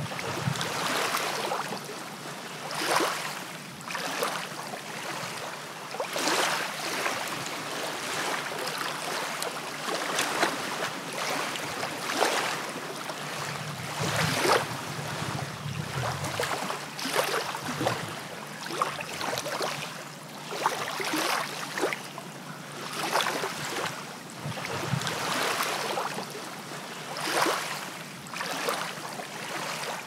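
Sea water lapping and sloshing: a steady wash broken by small, irregular splashes every second or so.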